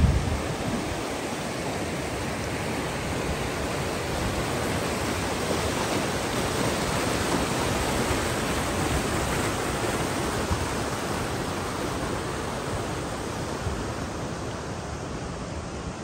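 Fast-flowing mountain stream rushing over rocks, a steady hiss of white water that is loudest in the middle and fades near the end.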